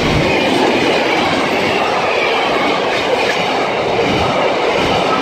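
Container freight train's wagons rolling past, steel wheels running on the rails in a loud, steady rumble.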